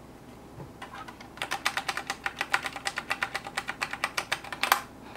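Akko 3068 Silent mechanical keyboard being typed on: a few scattered keystrokes, then a quick run of about eight strokes a second, ending with one louder keystroke near the end.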